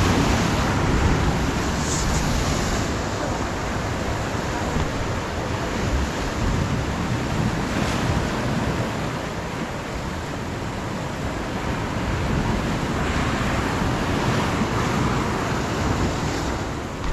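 Sea surf washing against jetty rocks, with wind buffeting the microphone as a steady low rumble.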